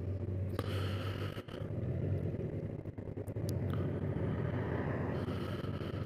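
2019 Honda Gold Wing Tour DCT's flat-six engine running as the bike rides along, a steady low hum mixed with road and wind noise.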